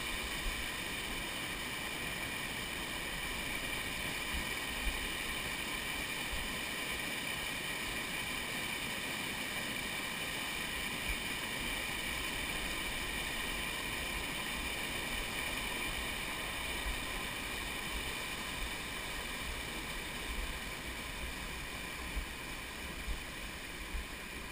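Steady rush of whitewater rapids close below, easing a little near the end, with a few short knocks.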